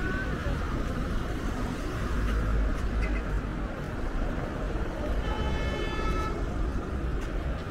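Steady city street traffic noise with a low rumble, and a vehicle horn sounding once for about a second, about five seconds in.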